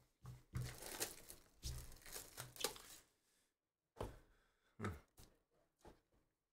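Plastic shrink wrap being torn and crinkled off a sealed cardboard trading-card hobby box, then a few short, sharp cardboard sounds about four seconds in as the box lid is opened.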